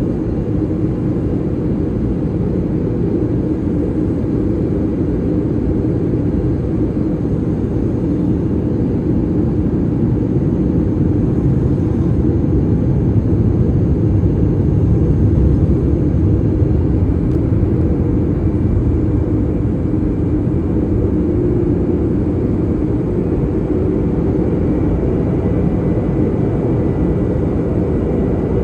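Airbus A330-300 cabin noise while taxiing: a steady low rumble of the engines and the rolling airframe, heard inside the cabin over the wing, swelling a little about halfway through.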